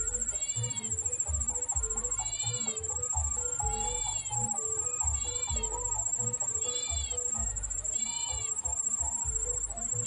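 Short, arched mewing calls of a prenjak meong (a prinia) at its nest, one about every second and a half, over a steady high buzz of insects.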